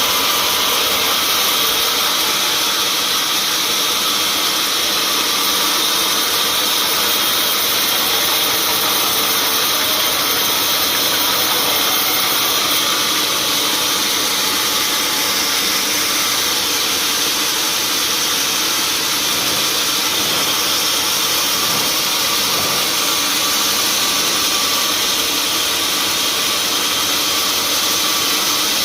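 Sawmill machinery running steadily: a loud, even mechanical noise with an engine hum and no let-up.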